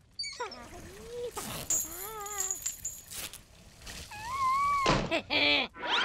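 Wordless cartoon-character voices: a few drawn-out, wavering moans or hums, with a brief rushing noise near the end.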